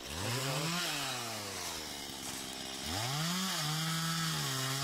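Two-stroke chainsaw cutting firewood: the engine revs up, then slows as it loads in the cut, twice, and holds a steady speed near the end.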